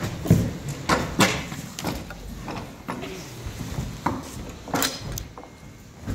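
Several sharp knocks and clunks at irregular intervals, loudest in the first second and a half: metal clamps and wooden blocks striking as a bent red cedar strip is clamped around a circular bending jig.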